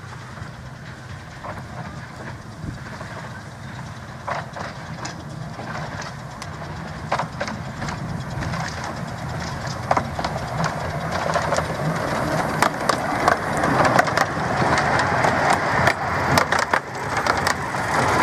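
Small narrow-gauge steam locomotive hauling coaches, coming closer and passing close by, growing louder throughout, with sharp clicks and clatter from the wheels on the rails that crowd together as the coaches go past.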